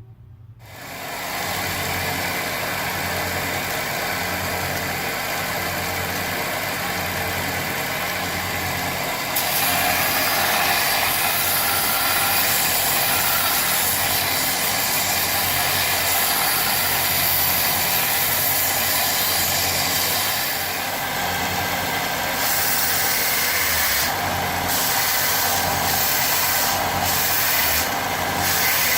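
Charnwood BD15 belt and disc sander with its 250-watt motor switched on, spinning up within about a second and then running steadily with a low hum and a wide hiss. About nine seconds in a louder hiss joins, and near the end this hiss comes and goes in short spells.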